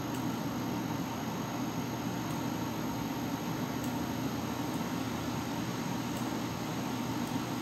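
Steady low hum with a constant hiss, unchanging throughout: background room noise.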